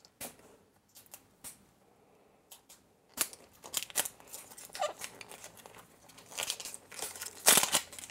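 Crinkling and tearing of a surprise egg's wrapper being pulled off by hand. A few sharp clicks come first, then steady crackling from about three seconds in, loudest near the end.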